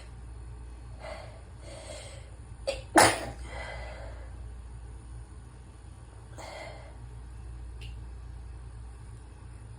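A single sharp human sneeze about three seconds in, set off by a quick catching breath just before it, after a couple of drawn-in breaths building up. Another breath follows a few seconds later. The sneezer is heavily congested.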